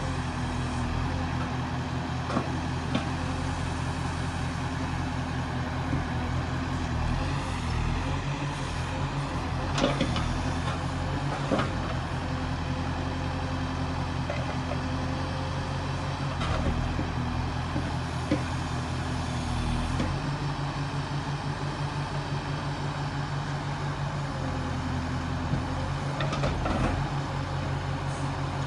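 Backhoe loader's diesel engine running steadily under work, its note shifting now and then, with a few short metallic knocks from the machine.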